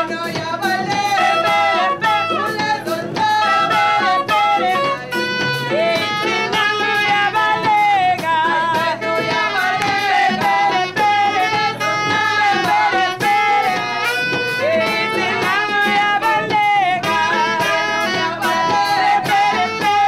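A band playing with singing voices over a steady drum beat.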